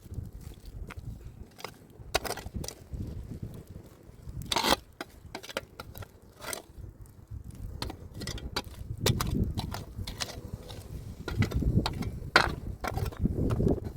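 Irregular knocks, clacks and crunching scrapes of hand work with stones and soil, one sharp strike standing out near the middle and another near the end, over stretches of low rumbling.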